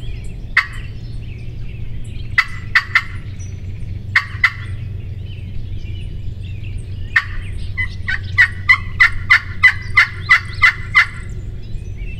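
Wild turkey gobbler gobbling several times in short bursts, then a long run of about a dozen evenly spaced calls, about four a second, near the end.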